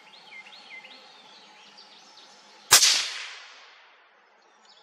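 A single suppressed rifle shot from a .204 Ruger (Ruger American Predator with a Banish 30 suppressor, 32-grain V-Max) about two and a half seconds in: a sharp crack that rings out and dies away over about a second and a half, quiet enough to be called hearing safe. Birds chirp faintly before the shot.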